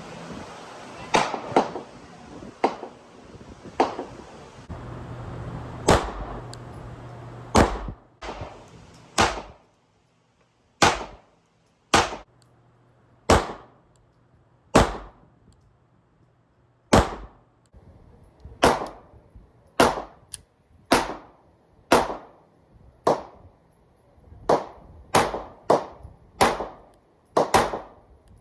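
Pistol shots from a 9mm Sig Sauer M18-style handgun, fired one at a time in slow, aimed fire: about two dozen sharp cracks, roughly one every one to two seconds, with quicker follow-up pairs near the end.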